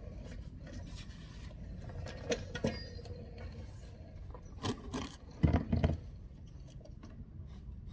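A rag rubbing and wiping, with scattered clicks and knocks of things being handled and a couple of louder thumps about five and a half seconds in.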